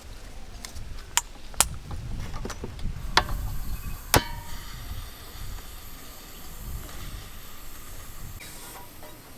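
Four sharp knocks or clicks, the last followed by a short metallic-sounding ring, over a low steady rumble and faint hiss.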